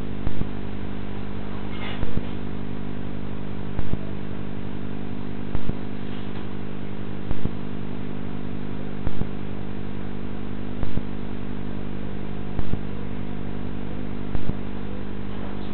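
Steady electrical hum on a CCTV camera's audio track, with a sharp click repeating evenly about every 1.75 seconds, nine times in all.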